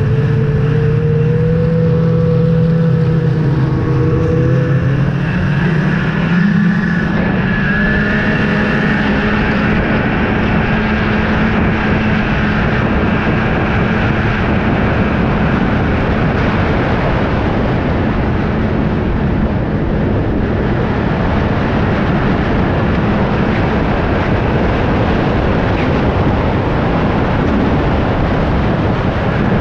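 Snowmobile engine running at speed along a trail, heard from the rider's seat over a steady rush of wind and track noise. The engine note climbs about six or seven seconds in, then holds steady.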